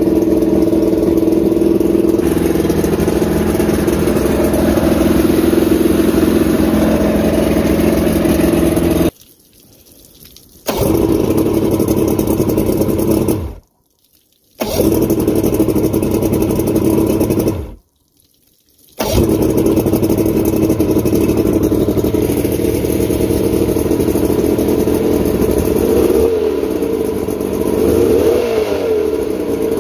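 Mercury 950SS inline-six two-stroke outboard running steadily, broken by three short drops. Near the end it is revved, the pitch rising and falling.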